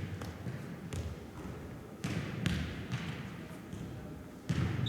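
Jokgu ball thudding on and off, about six times: kicked by players and bouncing on the court.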